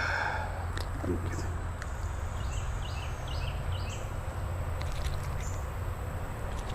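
A small bird gives a quick run of about five short chirps around the middle. Underneath runs a steady low rumble and the even hiss of creek water.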